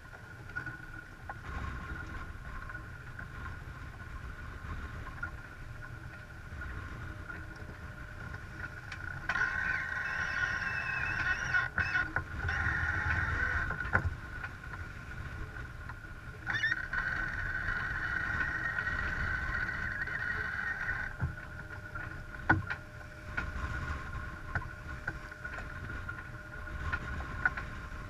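Sailing yacht under way: water rushing along the hull and wind on the microphone, with a steady high whistle throughout. Twice, for a few seconds each, a louder high-pitched rushing sound rises over it, about a third of the way in and again past the middle.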